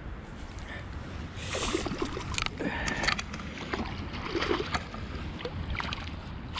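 A landing net being lifted out of the water: splashing and dripping from the mesh, with clicks and rustles as it is handled on the bank. A low wind rumble runs underneath.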